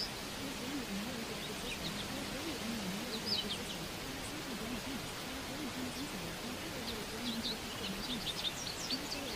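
Small birds chirping now and then over a steady outdoor hiss, the chirps busiest near the end; a low wavering hum runs underneath.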